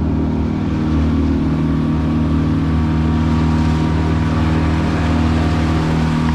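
Fishing boat's engine running steadily at one even pitch, with a steady hiss over it.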